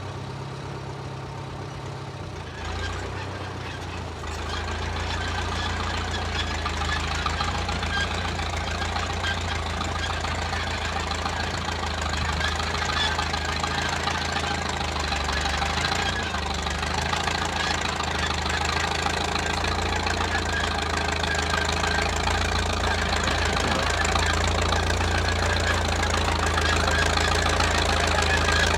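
Engine of a 1934 Caterpillar crawler bulldozer running steadily, stepping up in level about three seconds in and then growing gradually louder.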